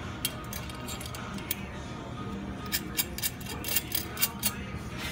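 Light metallic clicks and clinks from sign clamp hardware being handled, a few early and then a quick irregular run of about a dozen in the second half, over steady background music.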